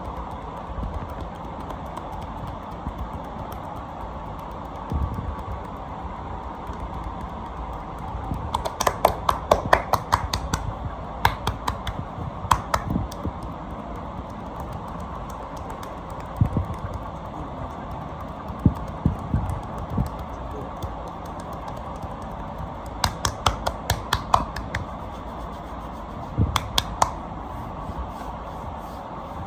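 Hands working over a person's back in a massage, giving scattered low thumps and several quick clusters of sharp clicks and pops, over a steady background hum.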